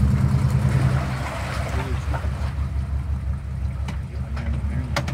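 Chevrolet 4x4's engine running under load, revving hardest in the first second and then easing off, as the truck, stuck in a mud hole, tries to drive out. A few sharp clicks near the end.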